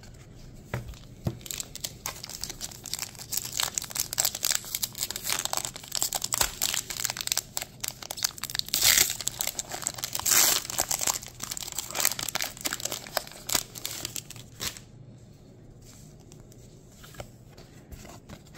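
Foil wrapper of a Pokémon card booster pack being torn open and crumpled: a dense, crackly run of crinkling and tearing, loudest about halfway through. It stops about fifteen seconds in, leaving only faint handling of the cards.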